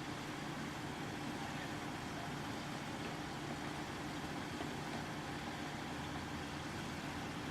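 Utility truck's engine idling steadily, a constant low drone.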